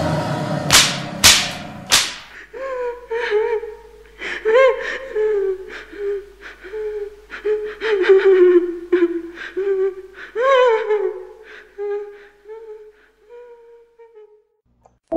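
Three sharp whip cracks follow a harsh roaring noise. Then come a woman's high, broken crying wails that rise and fall and fade out: a radio-drama sound effect of the captive being whipped.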